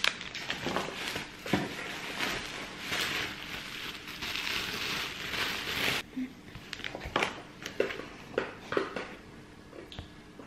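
Rustling and crinkling of packaging as items are taken out of a cardboard box lined with bubble wrap. It cuts off sharply about six seconds in, and a few light taps and knocks of boxes being handled follow.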